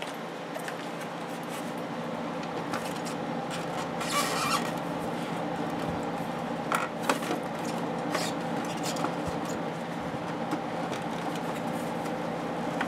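Plastic handlebar cover of a BMW K1200LT being worked loose by hand: a few scattered plastic rubs and clicks over a steady low hum.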